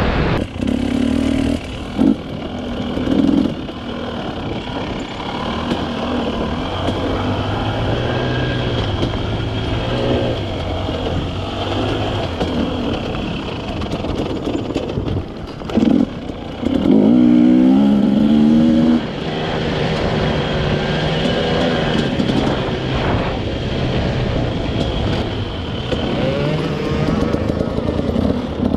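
Quad (ATV) engine running continuously under way, its revs rising and falling over rough tracks, with a short hard rev about halfway through.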